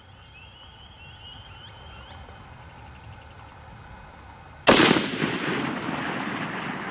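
A single shot from a Howa HLR 6.5 Creedmoor bolt-action rifle about two-thirds of the way in, sudden and loud, followed by a long echo that dies away slowly.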